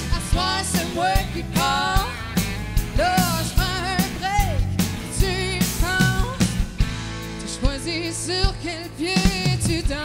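A woman singing lead with a band of acoustic and electric guitars and drums, her held notes wavering with vibrato over a steady drum beat.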